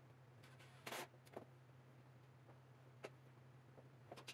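Near silence: a low steady hum with a few faint knocks and clacks of wooden pieces being handled on a workbench, the loudest about a second in.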